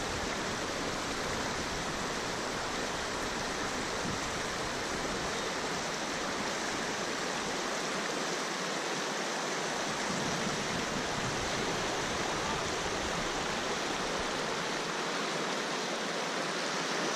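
River rapid: shallow water rushing and splashing over rocks close by, a steady rushing noise.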